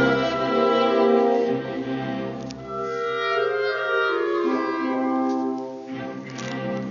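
Live orchestra playing classical music, held notes moving from chord to chord, a little softer from about two seconds in.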